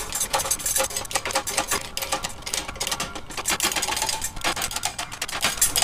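Rapid, irregular metal clicking and ticking as a bottle-jack press is worked to push a Toyota rear axle shaft the rest of the way through its wheel bearing, after the axle has broken free.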